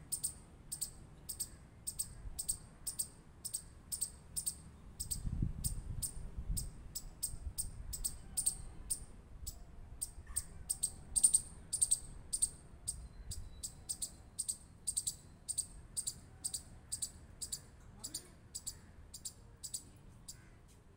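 Chipmunk giving its rapid, high-pitched "chip" call over and over, about two to three chips a second, in an even rhythm.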